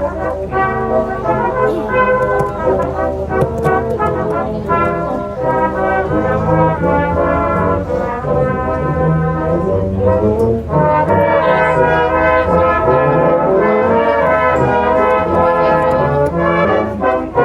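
Brass band playing a tune, several brass instruments sounding together, with longer held chords in the second half.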